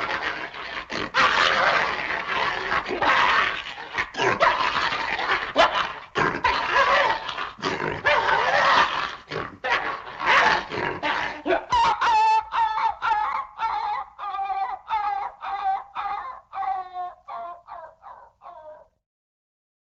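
Excited dog yipping and whining: about twelve seconds of dense, rapid vocalising, then a string of short whines about two a second that sink slightly in pitch and fade out.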